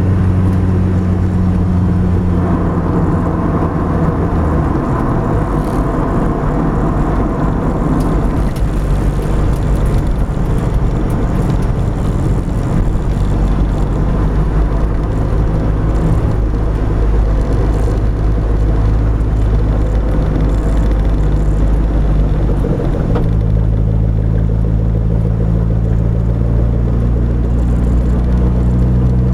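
Mitsubishi Eclipse GSX's turbocharged four-cylinder engine, heard from inside the cabin at speed, over steady tyre and wind noise. The engine note drops away about four seconds in and comes back strong about three quarters of the way through.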